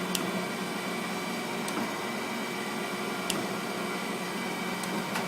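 Kent KGS-63AHD hydraulic surface grinder running: a steady hum from the spindle motor and hydraulic pump, with a light click about every second and a half.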